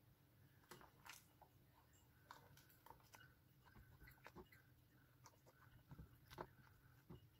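Near silence, with faint, irregular clicks and scrapes of a spoon stirring milk in a steel saucepan as custard mix is stirred in.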